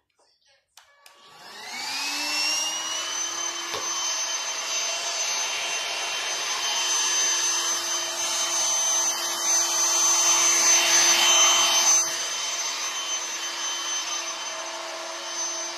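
Handheld vacuum cleaner switched on with a click about a second in. Its motor winds up in a rising whine, then runs steadily with a high whine over rushing air while the nozzle works over sofa cushions. It is louder for a couple of seconds just before it eases, then cuts off near the end.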